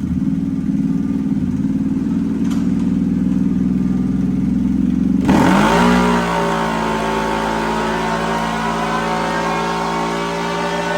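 CFMOTO CFORCE 1000's V-twin engine running on its stock exhaust header: steady at first, then revving up sharply about five seconds in and holding at the higher engine speed.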